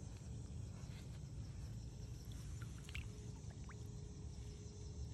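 Faint low rumble of wind buffeting the phone's microphone outdoors, with a faint steady hum through the second half and a few small ticks.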